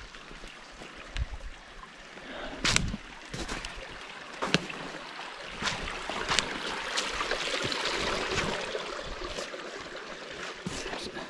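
Footsteps pushing through thick swamp undergrowth. Branches rustle and brush steadily, swelling in the middle, with scattered sharp twig snaps.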